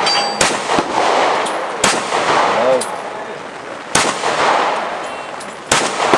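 Glock pistol fired four times at steel plates at an unhurried pace of roughly one shot every one and a half to two seconds, each sharp report followed by a short echo.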